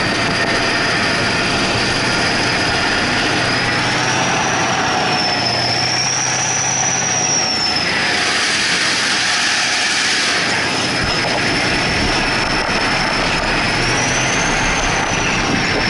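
A 2S1 Gvozdika tracked self-propelled howitzer on the move, its V8 diesel engine and running gear making a loud, steady noise. A high whine rides on top, slowly rising and falling in pitch.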